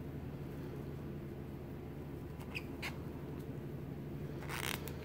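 Faint crochet handling sounds, a crochet hook and yarn being worked: a couple of small clicks around the middle and a short rustle near the end, over a steady low hum.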